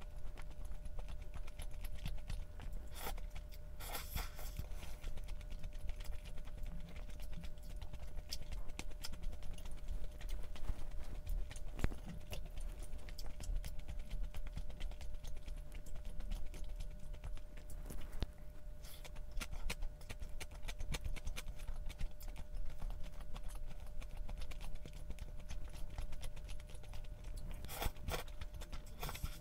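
A person eating close to the microphone: chewing with scattered small clicks and taps, over a faint steady hum.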